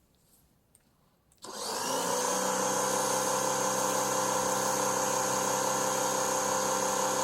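Pressure washer starting up: its motor spins up with a short rising whine about a second and a half in, then runs steadily at full speed.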